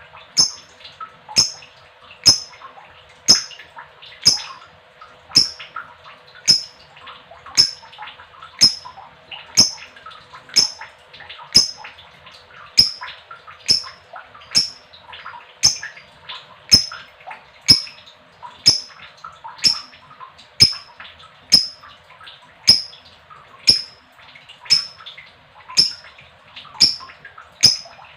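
Female lovebird's long chattering 'ngekek' trill running continuously, with a loud, sharp, high click repeating very regularly about once a second over it.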